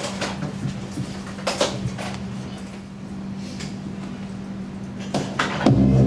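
A few scattered light knocks and rustles from performers moving at a conference table and office chairs, over a steady low hum. Near the end, loud drum-driven music starts abruptly.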